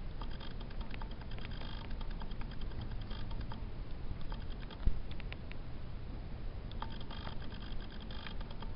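A New Guinea singing dog puppy's mouth clicking and smacking as it nibbles and licks at a cat, in quick irregular clusters of clicks. One thump comes about five seconds in.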